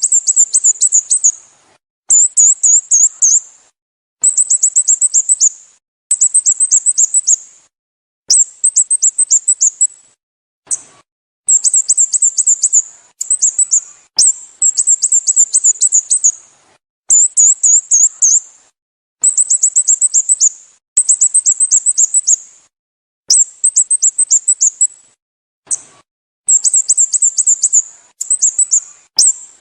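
Sooty-headed bulbul calling: repeated bursts of rapid, high, quickly falling chirps, about one burst every two seconds, each lasting a second or so.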